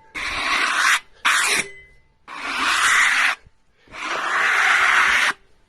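Wood scraping on a freshly sawn cherry burl board: four separate scrapes of about half a second to a second and a half each, with short pauses between.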